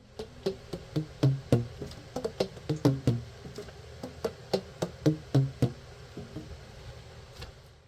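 Tenor saxophone keys being tapped shut, each pad closing on its tone hole with a short pitched pop, the pitches changing from key to key in an irregular run that thins out after about six seconds.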